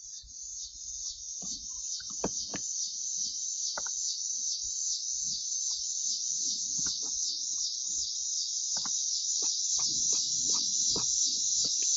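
Loud, continuous high-pitched chorus of chirping insects, pulsing evenly and growing louder, with scattered light clicks and some low rumbling near the end.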